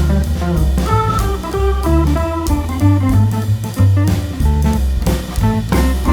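Background music: upbeat jazzy instrumental with a walking bass line, drum kit and guitar or organ.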